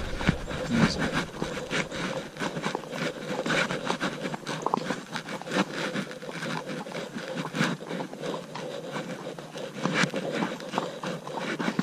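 A horse walking along a woodland track covered in fallen leaves: irregular rustling, crunching and scraping of hooves through the leaves and brush.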